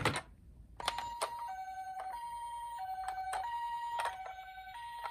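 Toy ambulance minicar's electronic two-tone siren, switching between a higher and a lower note about every two-thirds of a second in the hi-lo 'pee-poh' pattern, starting about a second in. A few sharp clicks sound over it.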